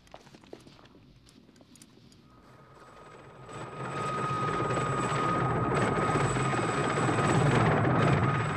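Military helicopter approaching: faint at first, then from about two seconds in it grows louder into a steady rotor throb with a high turbine whine.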